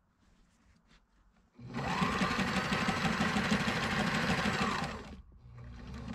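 Sailrite Ultrafeed walking-foot sewing machine stitching heavy canvas in one run of about three and a half seconds. It starts about a second and a half in, speeds up, then slows to a stop.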